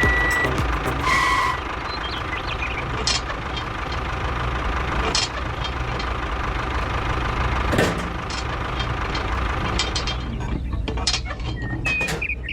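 Small engine running steadily, with scattered clicks and knocks.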